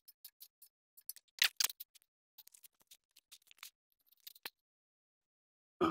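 Hand ratchet clicking in short strokes as the clamp bolt of an exhaust tip is tightened, with two sharper metallic clicks about a second and a half in.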